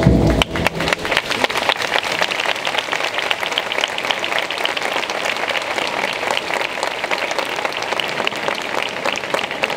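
A band's march ends on a held chord right at the start, and a crowd breaks into dense, steady applause.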